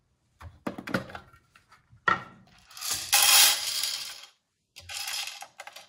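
Coffee beans poured and rattling into the clear plastic hopper of a Baratza Sette 270 grinder. A few light knocks come first, then a loud rattle about two seconds in that lasts a second and a half, and a shorter one near the end.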